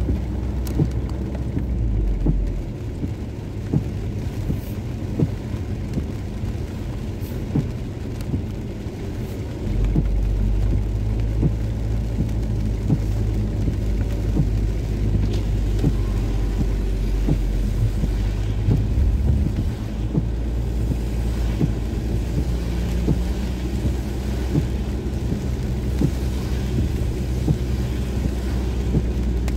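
Inside a moving car in heavy rain: low engine and road rumble that drops and rises a few times, with many small ticks of raindrops hitting the windshield and roof over a hiss of wet tyres and rain.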